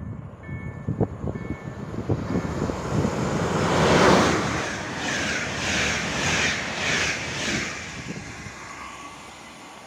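Express passenger train hauled by a Siemens Vectron electric locomotive (X4E-626) passing at speed. A rush swells to its loudest about four seconds in as the locomotive goes by, then the coaches' wheels clatter in a steady rhythm of about two beats a second, fading away.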